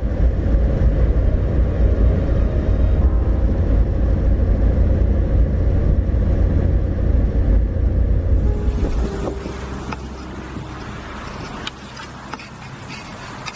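Steady low rumble of road and engine noise from a Daewoo Damas microvan cruising on a highway. About eight and a half seconds in it cuts to a much quieter outdoor hiss with a few light clicks.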